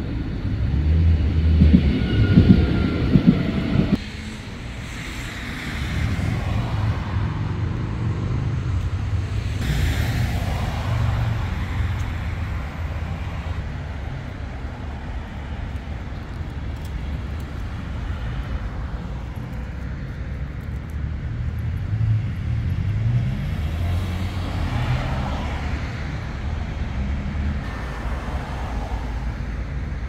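City street traffic: a steady low rumble with several vehicles passing by, swelling and fading. The level drops abruptly about four seconds in.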